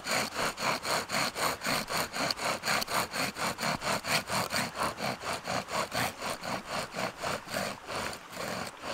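Bow drill being sawed back and forth: the wooden spindle rasping in the hearth board in a fast, even rhythm of about five strokes a second. This is the burn-in stage, heating the wood to seat the spindle rather than trying for an ember, and the plastic water bottle cap used as the bearing block is melting through.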